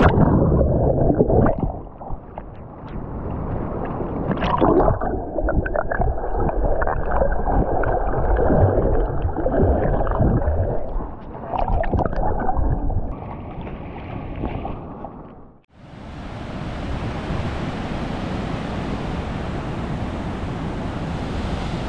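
Water heard through a GoPro submerged in the sea: dull, muffled sloshing and bubbling with irregular knocks. A little past the middle the sound drops out for a moment, then opens into a steady hiss of surf and wind on the microphone as the camera comes up out of the water.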